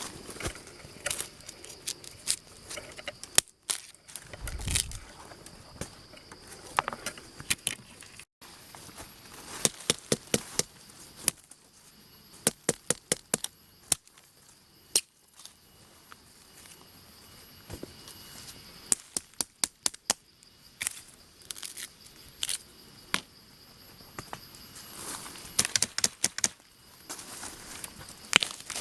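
Hand harvesting among crop plants: irregular sharp snaps, cracks and knocks, several coming in quick runs, over a steady high-pitched insect drone.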